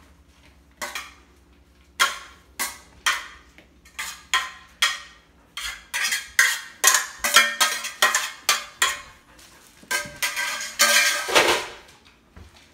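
Stainless steel colander pot knocked and shaken over a wooden bowl as pieces of cut napa cabbage are tipped out: a long run of uneven metallic clanks and knocks, with a louder, longer rattle near the end.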